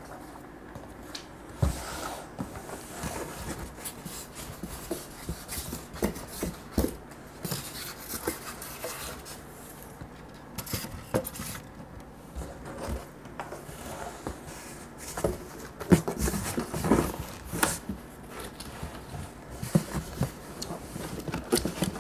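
Irregular rustling, scraping and knocking of packaging being handled while a subwoofer is unpacked: paper sheets, styrofoam packing pieces and the cardboard box. The handling is busiest about three quarters of the way through.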